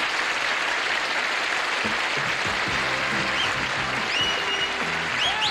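Studio audience applauding, with a band starting to play instrumental music about two seconds in as the clapping goes on.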